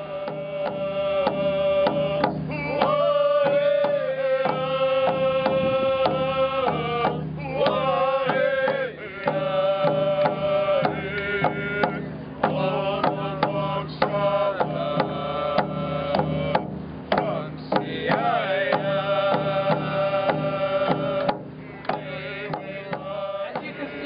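Background music: a moving melody over a steady held drone, with frequent quick drum strokes.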